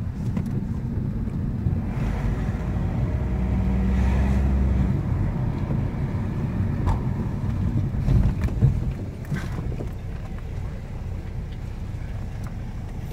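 Car engine and road noise heard from inside the cabin while driving, a steady low rumble that grows louder about three to five seconds in and eases off in the last few seconds as the car slows. A single knock is heard a little past the middle.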